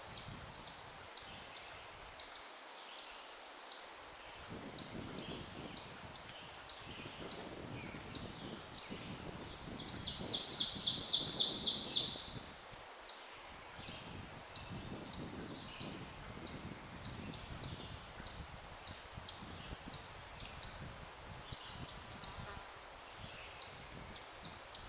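Small birds chirping, short high calls repeating about twice a second, with one fast trill about ten seconds in that is the loudest sound, and two sharp downward-sweeping calls near the end. Low wind noise underneath.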